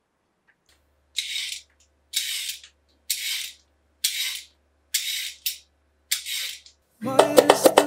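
Y-shaped vegetable peeler scraping down a raw carrot, six strokes about one a second. Music with plucked guitar starts near the end.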